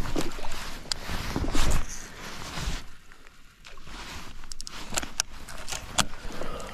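Close handling noise from an angler working a baitcasting rod and reel: rustling clothing and knocks at first, then a run of sharp clicks in the second half.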